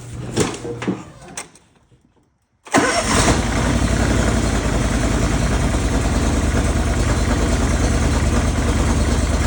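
A few light clicks, then the John Deere 318's Honda GX630 V-twin engine starts suddenly about three seconds in and settles into a steady run. This is its first start after an oil and filter change.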